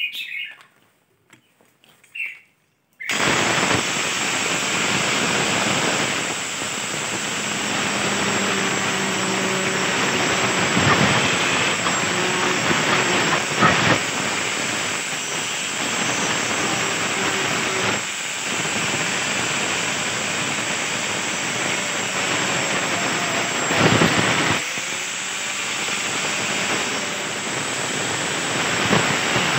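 Electric angle grinder fitted with a toothed wood-cutting saw blade starts about three seconds in and runs loudly, cutting through a wooden board. The noise is steady, with a few brief changes in level as the cut is pushed along.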